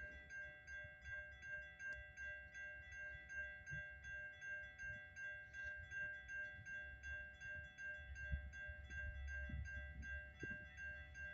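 Railroad grade-crossing bell ringing steadily at about two strokes a second while the warning lights flash, with a low rumble underneath that grows toward the end.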